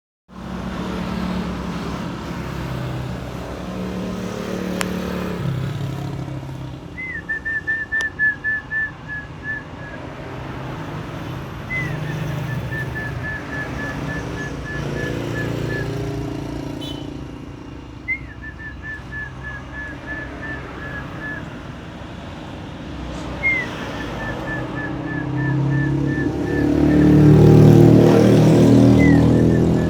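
Zebra dove cooing: five calls, each a short rising first note followed by a quick, even string of about ten slightly falling notes. A motor vehicle engine runs underneath and grows louder near the end.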